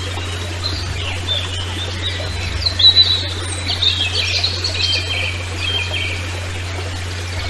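Small birds chirping and singing in short, repeated phrases over a steady low hum and an even background hiss.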